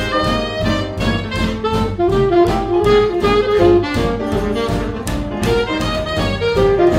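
Swing jazz band recording playing a medium-tempo tune, pitched melody lines over an even, regular beat.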